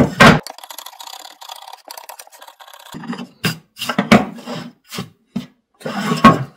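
Wood cutting-board blank and a chisel handled on a wooden workbench: a sharp knock as the board comes down, a scrape lasting about two and a half seconds, then a string of knocks as the board and chisel are shifted and set down.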